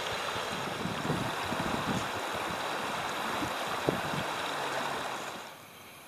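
Shallow mountain river rushing over rocks, a steady rush of water with occasional low wind buffets on the microphone. It drops away sharply about five and a half seconds in.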